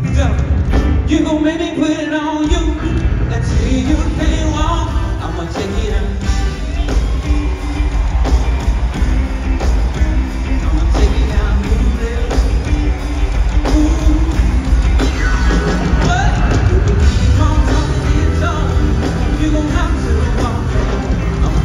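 Music: a song with a singer over a band and a steady heavy bass beat.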